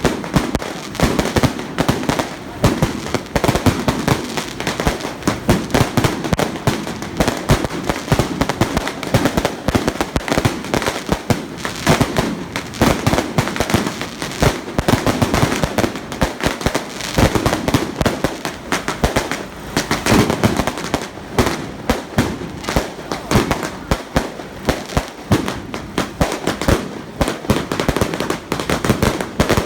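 A long string of firecrackers going off in rapid, continuous cracks.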